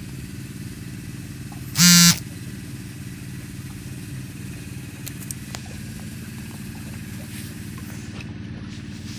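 An engine running steadily, a low, even drone. About two seconds in, a loud, short, sharp burst lasting about a third of a second stands out above it.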